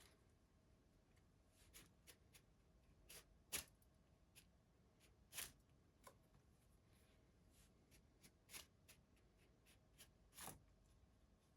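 Near silence with faint, irregular clicks and small handling sounds from work on a clock movement as its mainsprings are let down with a let-down tool.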